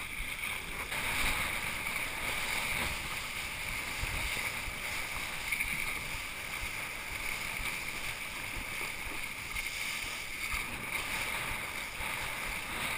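Steady rushing noise of a kiteboard skimming over choppy water, with wind over a chest-mounted GoPro.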